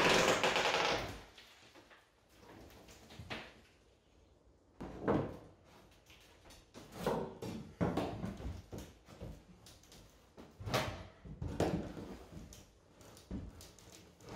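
Plywood underlayment strips being pried up off a wooden subfloor with a pry bar: scattered, irregular wooden knocks, creaks and scrapes a second or two apart, with a longer scraping sound at the start.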